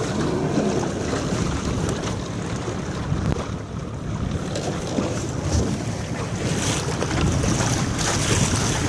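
Wind buffeting the microphone on a small sailboat under way, with water rushing and splashing against the hull; the hiss of the water grows stronger in the second half.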